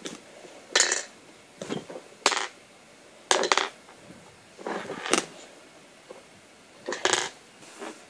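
LEGO Technic plastic parts clicking and clattering as they are pulled apart, handled and set down on a table: a series of separate sharp clatters, roughly one a second.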